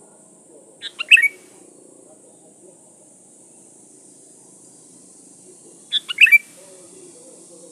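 Sooty-headed bulbul (kutilang) singing two short phrases about five seconds apart, each a quick run of a few clear notes, over a steady high hiss.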